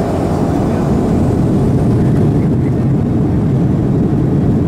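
Boeing 737-800's CFM56-7B jet engines at takeoff power during the takeoff roll, heard from inside the cabin over the wing. A loud, steady, deep rumble that grows a little louder in the first second.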